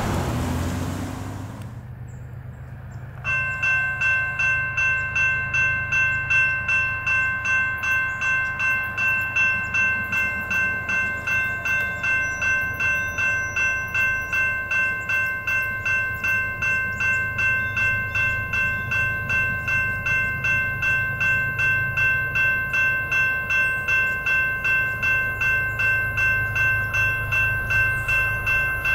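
Railroad grade-crossing warning bell starting up about three seconds in, then ringing steadily at about two strokes a second over a low, steady rumble. It signals an approaching train as the crossing's gates lower.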